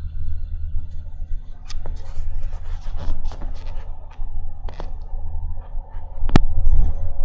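Steady low rumble of a moving bus, overlaid with scraping, rubbing and clicking from the camera being handled close against cloth or skin. One sharp knock comes about six seconds in.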